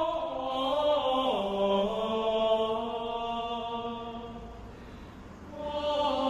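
Background music of slow, chant-like voices holding long notes. The notes step down about a second in, the music fades over the middle and swells again near the end.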